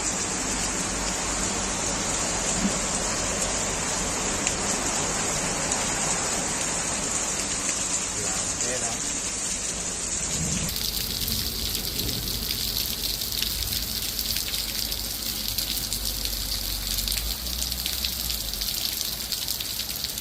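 Hailstorm downpour: a steady, dense patter of hail and rain hitting surfaces. About halfway through the sound changes abruptly to a thinner, crisper patter of many small impacts.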